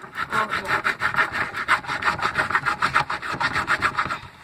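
Knife blade sawing back and forth into a dead battery's metal casing: fast, even rasping strokes, about seven or eight a second, stopping near the end.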